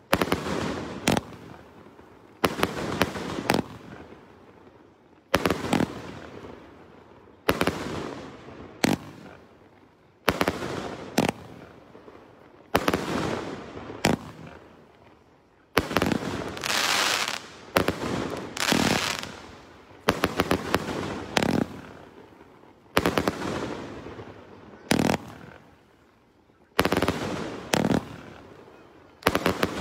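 A 1.2-inch, 100-shot gold coconut tree fireworks cake firing in sequence. Sharp shot and burst reports come every second or two, often in quick pairs or small clusters, and each fades off in a rush of noise before the next.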